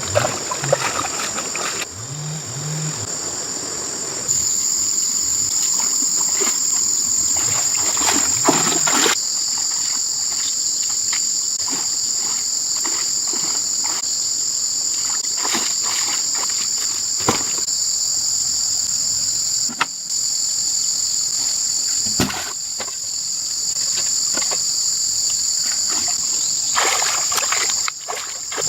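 A steady high-pitched insect chorus, with water splashing and sloshing now and then.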